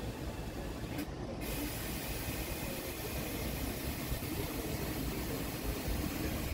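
Steady hiss over a low rumble, with the hiss dropping out briefly about a second in.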